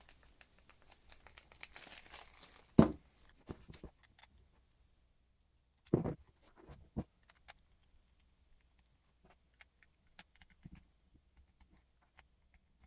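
Plastic packaging crinkling as it is handled, with a sharp knock about three seconds in and two more around six and seven seconds, then only faint small clicks.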